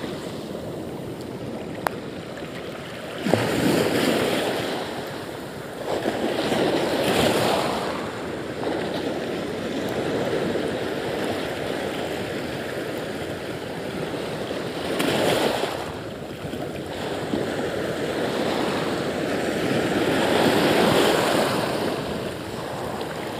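Shallow sea surf washing around, swelling and easing every few seconds, with wind on the microphone.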